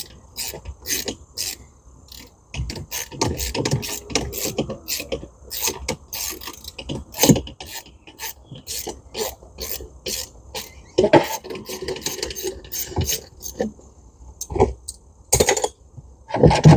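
Hand socket ratchet clicking in quick repeated strokes as bolts on a boat's sterndrive are worked loose, with a few heavier metal knocks near the middle and end.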